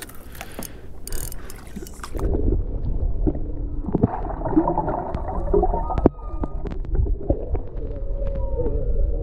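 Muffled underwater sound of the sea, heard through an underwater camera: a low rumble with gurgling and bubbling and scattered sharp clicks, starting about two seconds in. Before that, a few clicks above the water.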